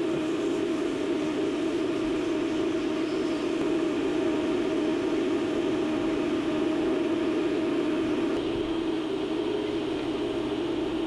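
Self-service car-wash vacuum running continuously, a steady rushing drone with a strong hum, as its hose sucks up dirt from a car's trunk and footwell.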